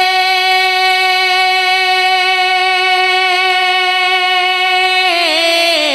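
A man's singing voice holding one long, high note at the end of a naat line, the pitch dead steady, then breaking into a quick wavering ornament about five seconds in.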